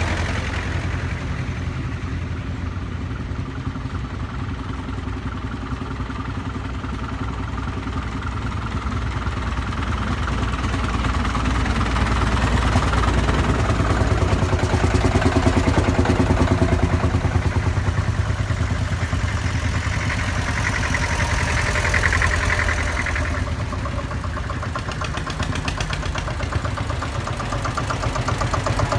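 Vintage tractor engines running as a line of old tractors drives past one after another; the sound swells as each tractor comes close.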